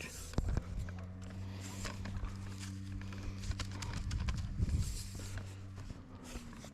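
Scattered footsteps, knocks and rustles of someone moving about on a riverbank and handling a landing net. A steady low hum runs underneath from about half a second in.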